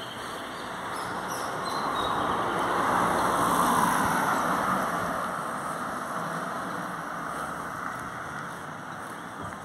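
A car passing by on the road, its tyre and engine noise growing louder, peaking about three to four seconds in and then fading away.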